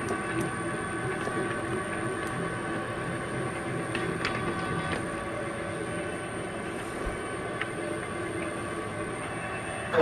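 Sharp 1640V variable-speed engine lathe running with its empty three-jaw chuck spinning. A steady whine from the headstock and spindle drive, with a thin high-pitched tone and a few faint clicks. It cuts off at the very end as the spindle brake stops it.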